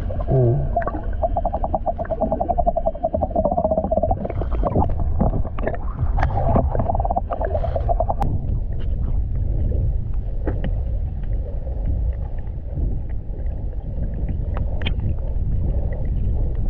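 Muffled underwater sound picked up by a GoPro in its waterproof housing: a steady low rumble of water with scattered clicks and bubbling. For about the first eight seconds a rapidly pulsing buzz rides over it, then stops.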